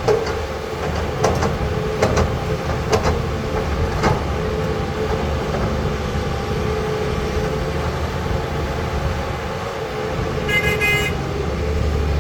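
Diesel engine of a Caterpillar 320 hydraulic excavator running steadily under working load, with a few sharp clanks in the first four seconds. Near the end comes a brief run of high-pitched beeps or horn toots.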